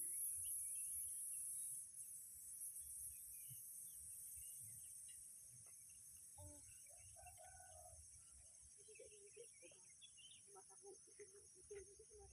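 Faint outdoor ambience: a steady high-pitched insect drone, with a few faint short bird calls, like a hen clucking, from about the middle on.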